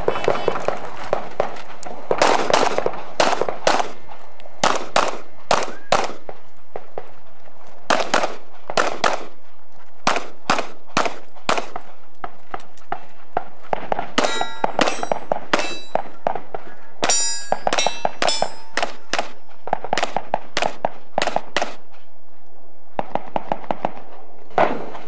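Rapid pistol fire: a long string of shots, many in quick pairs, with steel targets ringing out on hits in the middle of the string.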